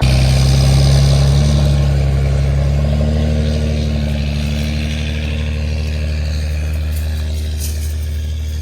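A motor vehicle's engine running steadily at a low, even pitch, slowly easing off in level.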